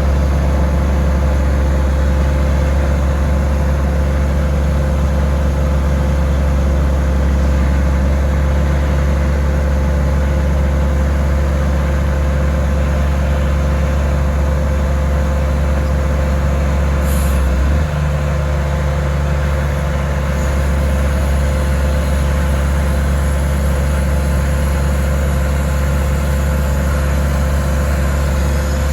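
Cat 345BL excavator's diesel engine running steadily, with a deep steady drone; about 18 seconds in, its low tone shifts abruptly and then settles again.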